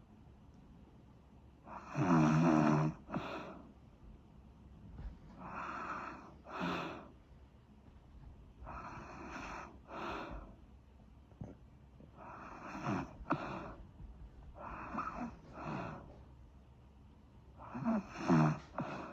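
Snoring: six snores three to four seconds apart, each a longer snore followed by a short second breath. The first and last are the loudest.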